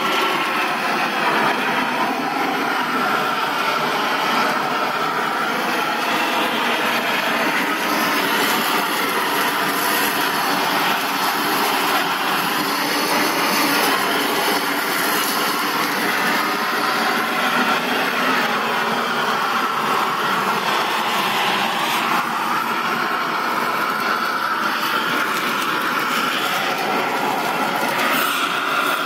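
Handheld propane torch burning steadily against green chiles in a wire roasting drum, a continuous loud rushing noise with a slowly wavering pitch.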